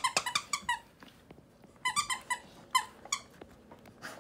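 Squeaker in a plush toy squirrel squeezed by hand, giving short, high squeaks in quick runs: about five in the first second, then three more about two seconds in and two near the three-second mark.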